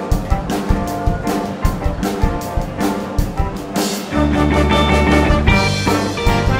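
Live rock band playing: drum kit, electric guitars, bass guitar and a Roland keyboard. The first part is carried by drum strokes, and about four seconds in the band comes in louder and fuller with a sustained low bass and held notes.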